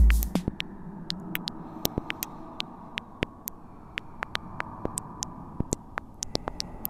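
A deep bass hit at the very start, then a steady low hum and hiss scattered with irregular sharp clicks and crackles, like static.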